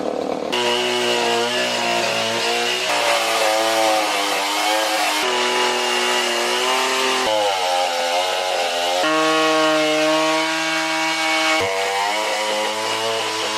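Two-stroke chainsaw running and cutting wood, its engine pitch sagging and rising under load, with abrupt jumps in pitch every few seconds.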